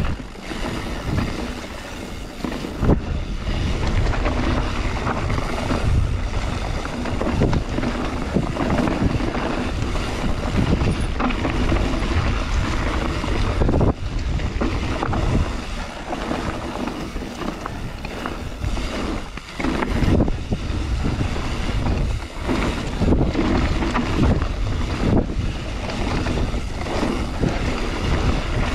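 Wind buffeting the microphone of a mountain bike on a trail ride, over continuous tyre-on-dirt rumble, with frequent jolts and rattles from the bike as it hits bumps.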